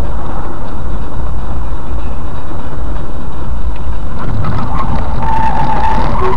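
Loud, steady rumble of a vehicle in motion. About five seconds in, a thin steady tone joins it for about a second.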